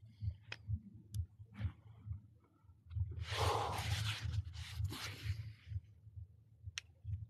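Scratchy rustling and rubbing close to the microphone for about three seconds in the middle, over a run of low, soft, irregular thuds, with a few sharp clicks.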